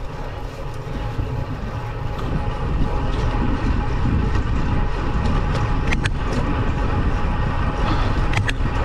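Road-bike tyres rumbling on rough, patched tarmac and wind buffeting the bike-mounted camera's microphone on a climb, getting louder about three seconds in as the speed picks up. A couple of sharp clicks cut through, about six seconds in and again near the end.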